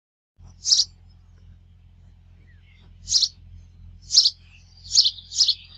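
An animal giving five short, high-pitched chirps at uneven gaps, the last two close together near the end, over a faint low hum.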